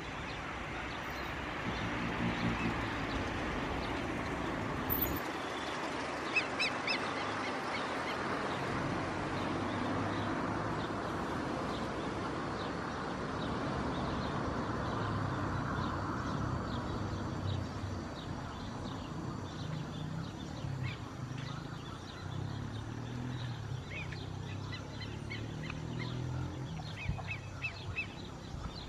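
Airbus A320 jet engines on final approach, a steady rushing noise that swells early and slowly drops in pitch toward the middle. Birds call now and then over it, more often in the second half.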